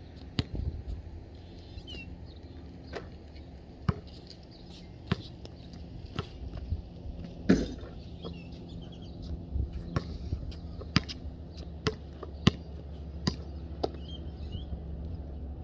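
Basketball bouncing on a concrete court, sharp bounces at irregular spacing of roughly one a second. The loudest bang, about seven and a half seconds in, is a shot hitting the rim. Birds chirp briefly a few times.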